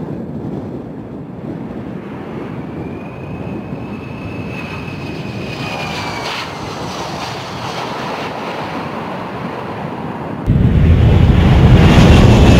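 C-17 Globemaster III's four turbofan jet engines running as the transport comes in to land, a steady roar with a high engine whine over it. About ten seconds in the roar jumps suddenly much louder, with a C-17 close by on the runway.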